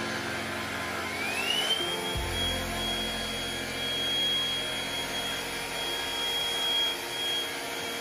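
Black & Decker POWERSERIES+ cordless stick vacuum running on a tile floor, a steady rushing noise. About a second in, its motor whine rises in pitch and then holds steady.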